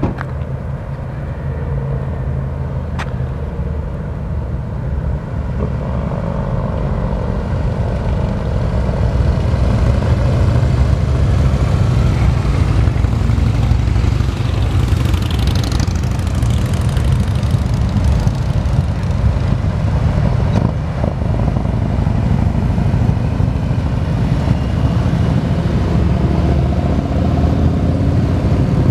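A group of touring motorcycles coming up the road, their engines a low, steady rumble that grows gradually louder as the bikes approach and reach the camera near the end.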